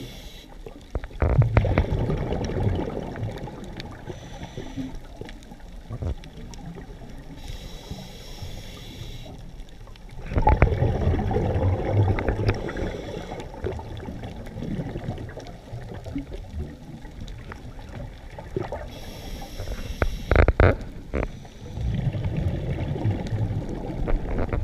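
Scuba diver breathing through a regulator underwater: a short high hiss of the inhale, then a long rush of bubbling exhaust bubbles, repeating about every ten seconds with three exhalations.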